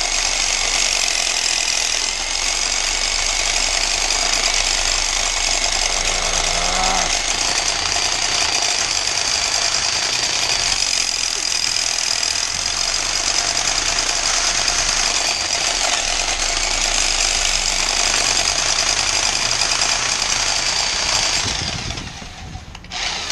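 A power tool running flat out and steadily for about twenty seconds, then cutting out near the end.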